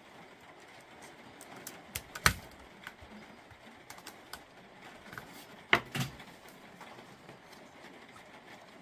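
Screwdriver and metal pick prying at the circuit board of a Makita 18V battery pack, giving two pairs of sharp clicks, about two seconds in and again about six seconds in, with faint small ticks between.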